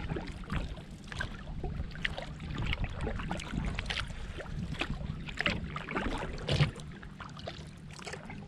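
Kayak paddle strokes: the blades dipping and splashing, water dripping off them, in an irregular series, with a louder splash about six and a half seconds in. A steady low rumble runs under it.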